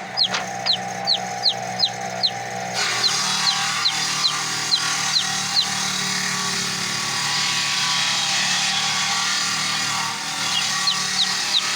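A bird calling over and over in short, high, downward-sliding chirps, about two or three a second. The calls break off about five seconds in and start again near the end, over a steady low hum.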